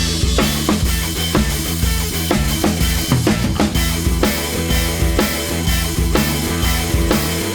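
Background music: a rock track with a steady drum-kit beat, kick and snare, over a bass line.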